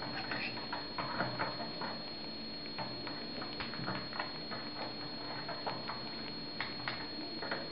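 Masked lovebird chick feeding from a metal spoon: soft, irregular clicks and taps of its beak working against the spoon.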